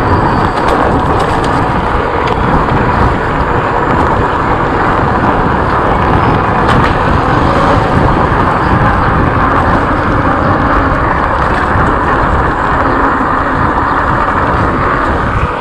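Steady wind and road noise from riding an e-bike, loud and continuous with no distinct separate event.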